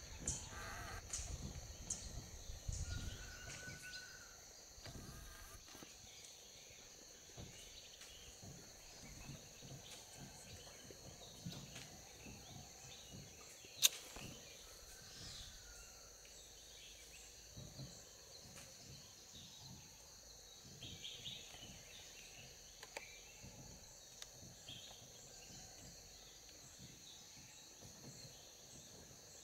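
Faint forest ambience with a steady high-pitched insect drone. There is low rumbling in the first few seconds and one sharp click about 14 seconds in.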